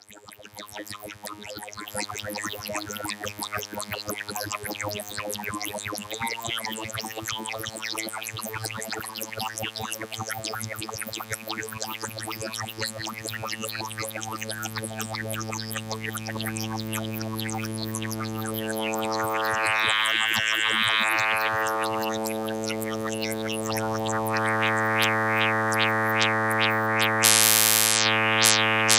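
A steady, buzzy synthesized drone from Logic's Test Oscillator run through the Synaptic Resonance neural-simulation plugin, holding one low pitch with a rich stack of overtones. It swells brighter and louder twice, once about two-thirds of the way in and again near the end.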